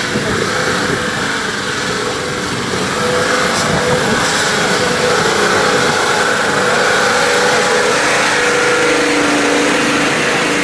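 Nissan Patrol off-road 4x4's engine running under load as it drives through deep mud, getting louder about three seconds in as the vehicle comes close.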